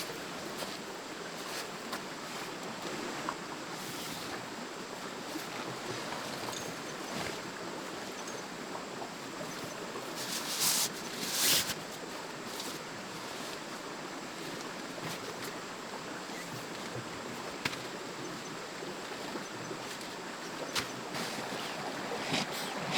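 Forest stream running steadily, an even rush of water. Two short, louder bursts of noise come close together about halfway through, and a few faint clicks come later.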